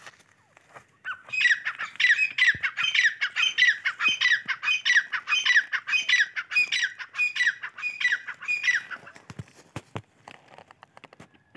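Grey francolin (teetar) calling: a loud run of sharp, evenly repeated notes, about three a second, starting about a second in and lasting about eight seconds.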